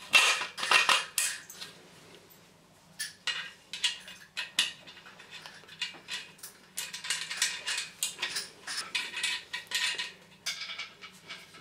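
Irregular metallic clinks and rattles of a bath's adjustable foot, a threaded steel rod with nuts and a spring washer, being handled and fitted through a steel cross beam. The clinks are loudest in the first second or so, stop briefly, then come back, thickest in a run of about three seconds in the second half.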